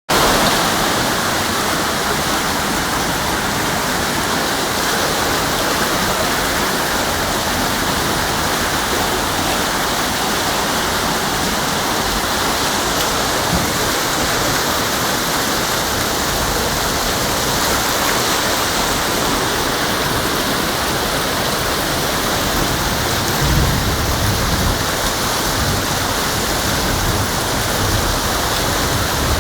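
Heavy rain and flash-flood water rushing through a street, a steady, even rush of water noise. A little low rumble joins it about 23 seconds in.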